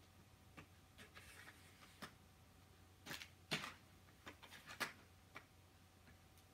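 Light, scattered clicks and knocks of plastic LEGO Technic parts as the rods, pivots and sliding carriage of the linkage are moved by hand. The sharpest clicks come past the middle.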